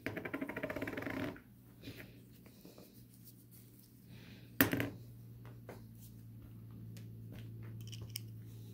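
Metal brake relay valve parts handled on a sheet-metal bench plate: a quick, even run of clicks lasting about a second, then a single sharp knock as a part is set down, with a few light ticks after. A steady low hum runs underneath.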